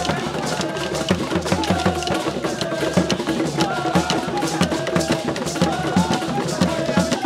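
Traditional Ghanaian drumming: hand-struck barrel drums and shaken gourd rattles playing a fast, dense rhythm, with a wavering melody line above the percussion.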